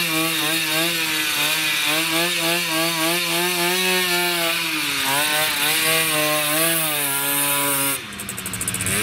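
Small two-stroke moped engine running at high revs as the bike pulls away, its pitch wavering with the throttle and easing briefly about five seconds in. Near the end it drops back to a lower, uneven note.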